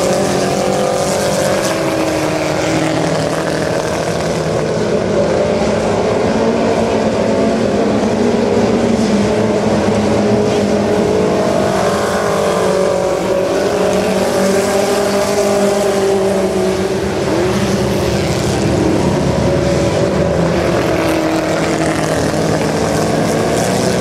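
A pack of Chevrolet Chevette dirt-track race cars running laps, their four-cylinder engines rising and falling in pitch as they race.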